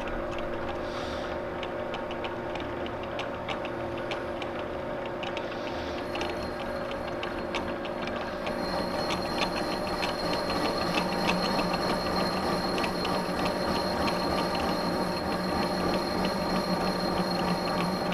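Victor lathe running with a steady gear-drive hum and rapid light ticking as a radius tool cuts the Eutalloy-welded shoulder of a shaft. A high steady whine comes in about six seconds in, and the sound grows a little louder in the second half.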